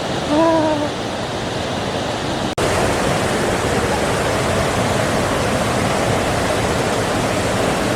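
Steady rush of a waterfall, with a short voice call about half a second in. The sound cuts out for an instant about two and a half seconds in, then carries on.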